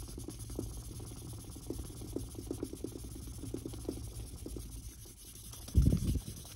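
2000-grit wet sandpaper on a small sanding stick scrubbing back and forth over a painted surface in quick, light strokes, about three or four a second, wearing down what is left of a paint run. A louder thump about six seconds in.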